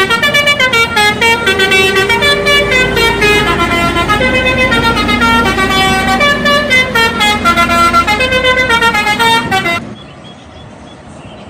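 Indonesian bus telolet horn, a multi-tone air horn, playing a melody of notes that step up and down. After about ten seconds it cuts off abruptly, leaving a much quieter background.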